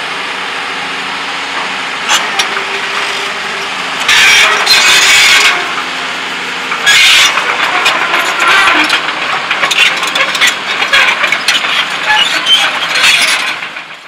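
Heavy construction machinery running with a steady engine hum. Two loud rushing bursts come about four and seven seconds in, followed by a long run of irregular crackling and clattering.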